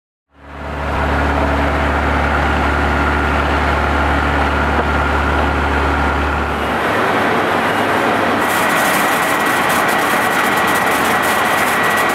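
Mechanical over-the-row blueberry harvester running in the field: a steady engine drone. About two-thirds of the way in the sound shifts to a noisier, crackling mechanical rattle.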